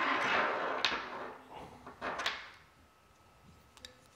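Hands handling small computer parts on a tabletop: a rustling scrape for the first two seconds or so, with a sharp click about a second in and another just after two seconds, then only faint taps.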